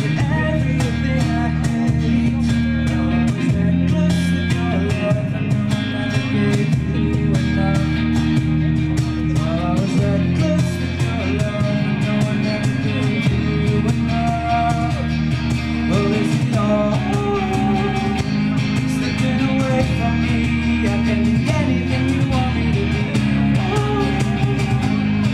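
A small rock band playing live: strummed acoustic guitar, electric guitar, bass guitar and a steady cajon beat, with a sung lead vocal over them.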